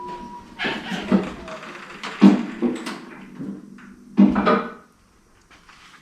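A steady hum stops just after the start, then three bursts of metallic clunking and rattling, the last and loudest ending about five seconds in.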